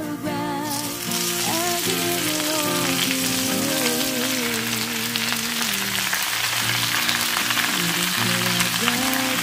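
Minced garlic and freshly added wet spinach leaves sizzling in hot oil in a frying pan, a steady crackling sizzle that starts about a second in. Background music with a singing voice plays along.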